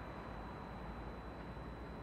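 Steady railway-station background noise: an even hiss and low rumble with a faint constant high-pitched whine, no distinct events.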